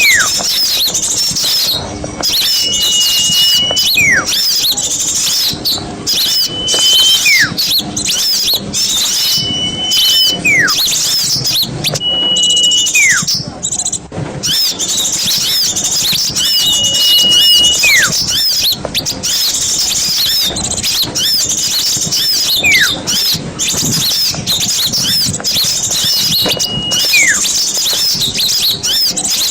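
A dense chorus of small songbirds chattering and twittering noisily. It is the kind of agitated multi-species bird racket played as a lure to draw wild birds in. Over it, a repeated call sounds about every three to four seconds: a held high whistle, then a note that slides sharply down.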